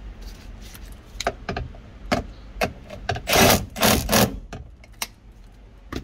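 Irregular knocks, clicks and scraping of tools and parts being worked by hand in a van's engine bay, during the refit of an air-conditioning condenser. The scraping is loudest for about a second past the middle.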